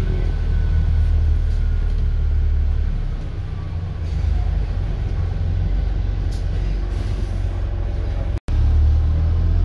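Steady low rumble of a moving bus's engine and running gear, heard from inside the passenger cabin. It dips slightly about three seconds in, and the sound cuts out for an instant near the end.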